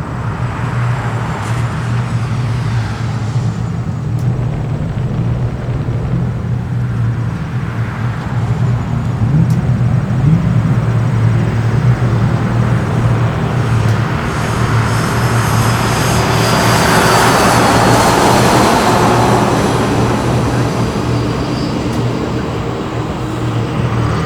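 1963 Chrysler Turbine car's A-831 gas turbine passing: a rush of noise that builds to a peak about two-thirds of the way through, carrying a high whine that falls in pitch. A steady low engine drone runs underneath.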